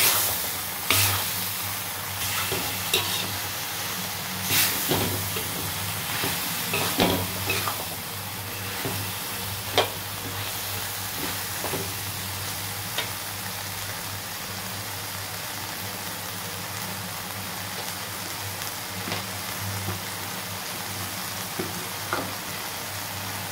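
Beef liver and vegetables sizzling steadily in an aluminium wok while a metal spatula stir-fries them, scraping and knocking against the pan. The stirring strokes are frequent in the first half and die away in the second, leaving mostly the steady sizzle.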